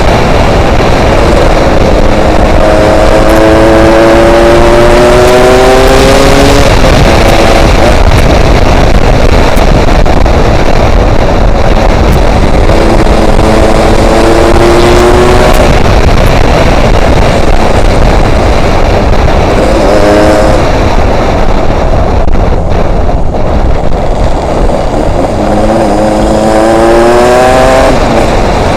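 Yamaha RX King's two-stroke single-cylinder engine pulling under acceleration while riding, its pitch climbing four times as it revs through the gears, under heavy wind noise on the microphone.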